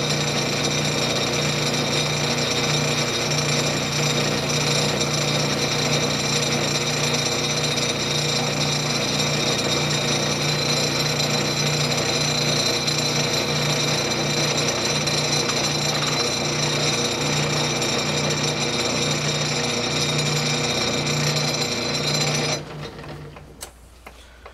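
South Bend Model A metal lathe running under power with a steady whine and a low hum that pulses in an even beat, while the final finishing pass is cut on the nut. About 22 seconds in it is switched off and dies away, followed by a few light clicks.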